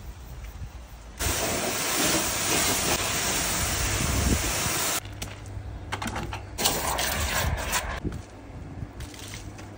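Pressure washer spraying water onto a car's bodywork: the jet cuts in suddenly about a second in with a loud, steady hiss for about four seconds, followed by several shorter spurts, over the low hum of the washer's pump.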